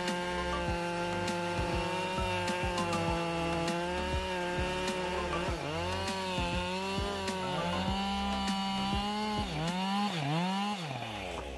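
Chainsaw at high revs cutting down through a large block of wood. The engine note holds steady at first, then sags and recovers several times under load from about halfway in, and drops away as the throttle is released near the end.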